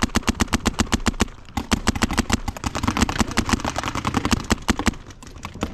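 Rapid automatic gunfire in a shooter video game, about ten shots a second in long bursts, with a short break about a second and a half in.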